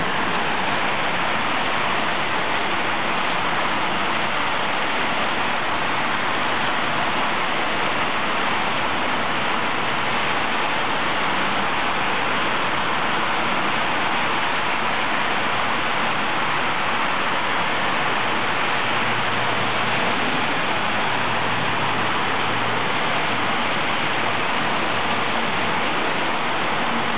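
Rain falling in a steady, even hiss, with a faint low hum now and then underneath.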